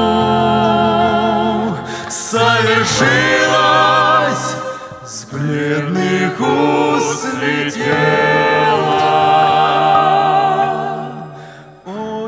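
Small vocal ensemble singing a slow hymn-like Christian song through microphones, several voices with vibrato over sustained keyboard chords. The phrase fades out briefly near the end before the singing starts again.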